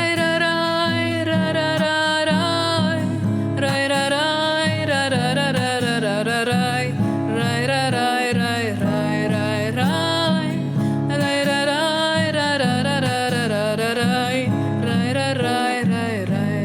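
A woman singing a long, melismatic wordless refrain over strummed acoustic guitar.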